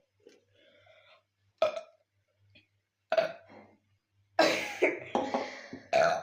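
People burping: two short burps, about one and a half and three seconds in, then a longer, louder burp from about four seconds in.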